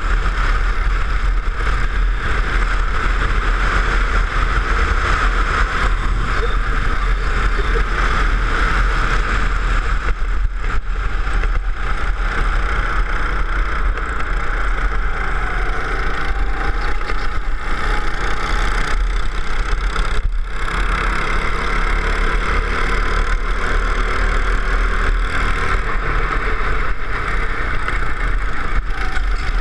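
Go-kart engine running at racing speed, its pitch rising and falling as the kart speeds up and slows through the corners, heard from an onboard camera with heavy wind rumble on the microphone.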